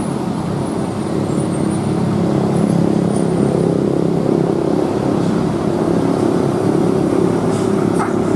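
A bus's diesel engine running loudly, its note building a little over the first couple of seconds and then holding steady.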